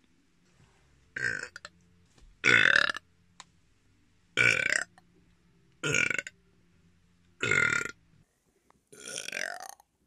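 A young woman burping repeatedly: six loud burps about a second and a half apart, the last one longer and drawn out.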